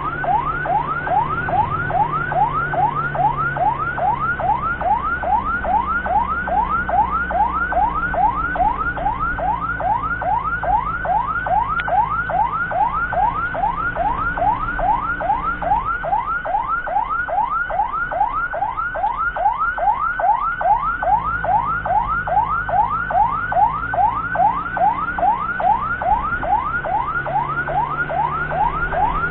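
Ambulance siren on a fast yelp: a rising wail that drops back and repeats about two and a half times a second without a break, over a steady low engine hum.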